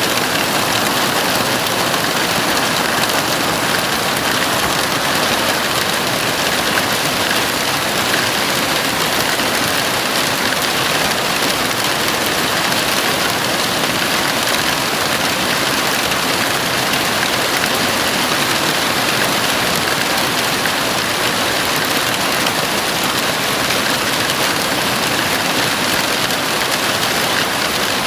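Heavy rain falling steadily on a house roof, an even, unbroken hiss with no thunder.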